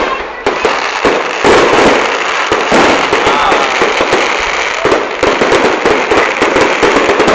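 Fireworks going off in a dense barrage of bangs and crackling, which surges in within the first second and goes on loud and unbroken, with fresh surges every second or two.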